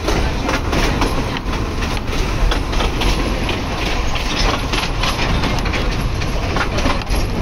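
Train running: a steady rumble with irregular clicks and clatter of the wheels on the rails.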